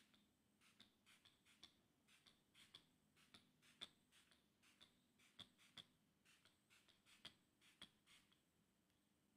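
Faint, quick spritzes of a fine-mist pump spray bottle, one short hiss-click after another at about three a second.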